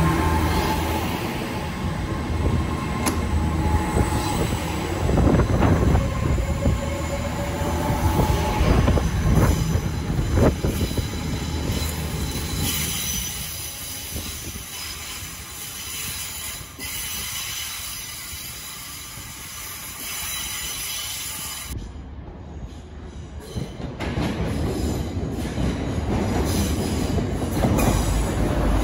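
Passenger trains moving through a station. A TransPennine Express class 802 unit pulls away along the platform, its wheels squealing with shifting high tones through the first half. After a quieter stretch, a class 185 diesel multiple unit runs past close by near the end, loud and deep.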